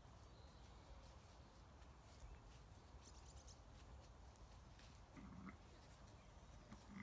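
Near silence with a faint steady outdoor background, broken about five seconds in by one short, faint bleat from a Zwartbles sheep.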